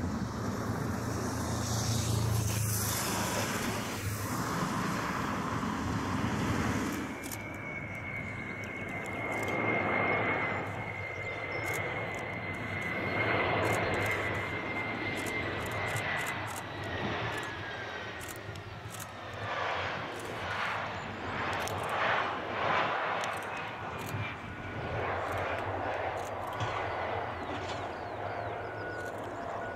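Ilyushin Il-76TD-90VD's four Aviadvigatel PS-90A turbofans on final approach: a steady jet roar. About seven seconds in the sound changes abruptly, and a high engine whine slowly falls in pitch as the aircraft passes low over the runway.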